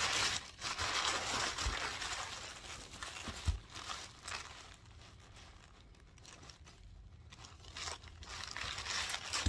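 White tissue paper crinkling and rustling as a package is unwrapped, loudest over the first four seconds or so, then fainter rustling as a small organza drawstring pouch holding plastic bags is handled.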